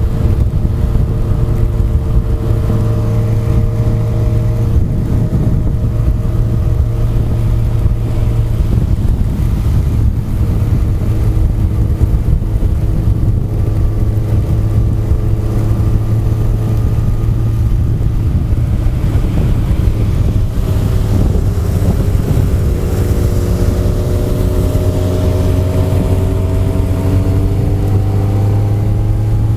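Honda CBR1100XX's inline-four engine running steadily at speed under a rush of wind, its pitch rising over the last several seconds as it accelerates.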